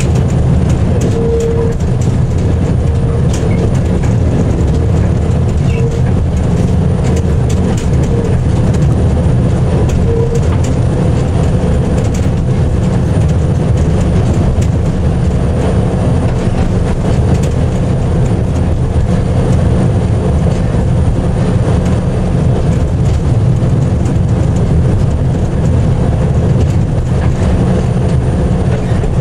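A train running along the track behind a DSA-class diesel locomotive: a steady low engine rumble with scattered clicks and rattles of the wheels over the rails.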